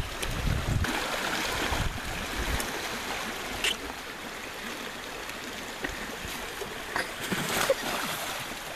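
Swollen, fast-flowing creek rushing steadily, with a few sharp splashes about seven seconds in as a man falls into the water.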